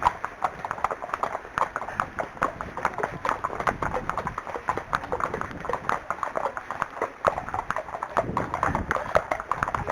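Hoofbeats of an unshod Arabian horse being ridden: a steady run of sharp hoof clicks, several a second.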